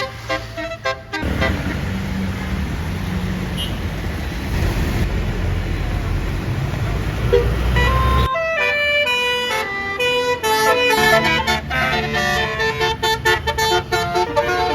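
Bus basuri air horn playing a melody of quickly changing notes, cut by several seconds of loud low rumble and noise from about one second in to about eight seconds in. Then the horn tune comes back and runs on.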